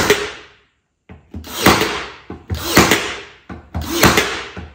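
Cordless battery-powered stapler firing staples through a wooden strip into thin plywood, four shots about a second apart, each a short build-up ending in a sharp snap.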